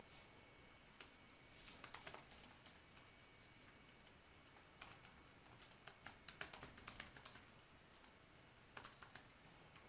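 Faint computer keyboard typing: irregular runs of quick key clicks with short pauses between words.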